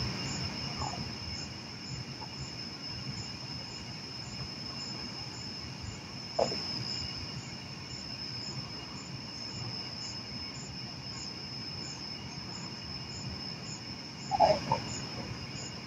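Night insects chirping steadily: a continuous high trill with a faster regular pulse above it, about two a second. A brief short sound cuts in about six seconds in, and a short snatch of voice near the end.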